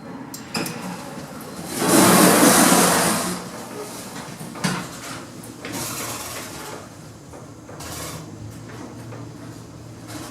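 Lift doors sliding, with a few clicks and clunks and a loud rushing noise lasting about a second and a half near the two-second mark.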